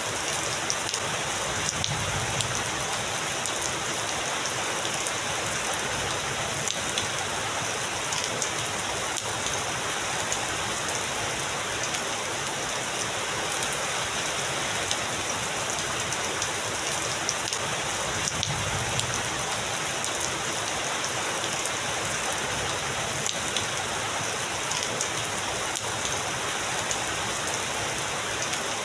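Heavy rain falling steadily, an even hiss with scattered sharp drop taps on a surface.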